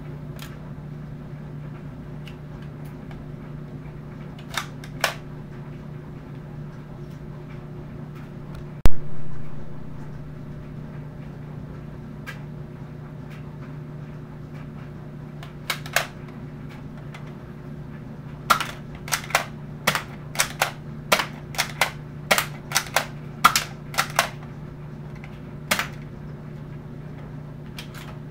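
Plastic clacks and snaps of a Nerf revolver-style blaster being worked and fired. There is a loud single knock about nine seconds in and a rapid run of a dozen or so clacks in the second half, over a steady low hum.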